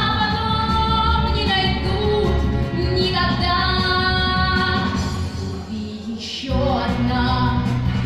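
A girl singing a slow song in Russian into a microphone over instrumental accompaniment. The music thins out for about a second near the end before she starts the next phrase.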